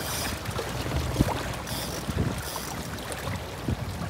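Water sloshing and splashing against the side of a fishing boat as a hooked brown trout swirls at the surface alongside, with wind on the microphone. There is a sharp knock about a second in.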